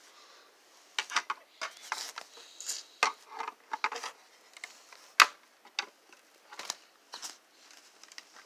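Irregular plastic clicks and taps of a fire-alarm sounder strobe being handled while its cover tab is worked at, with one sharper click about five seconds in.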